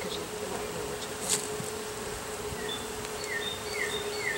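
Honeybees buzzing around an open nuc hive, a steady hum. In the second half, a series of short, falling high chirps comes about twice a second.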